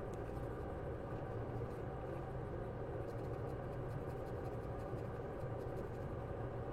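Steady low hum with an even hiss from electrical equipment running at a microsoldering bench.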